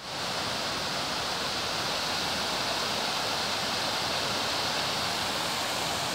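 River water rushing over a small rocky waterfall into a pool, a steady, even rush.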